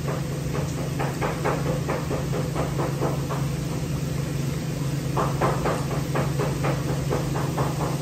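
Rapid chopping strokes at about three a second, stopping for a moment about three and a half seconds in and then going on, over a steady low hum.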